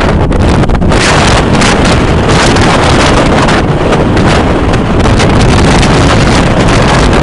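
Strong wind buffeting the microphone: loud, continuous rumbling noise that grows louder about a second in.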